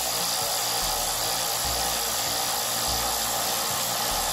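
Cordless electric right-angle ratchet wrench running steadily with a continuous motor-and-gear whir as it turns a socket on a bolt.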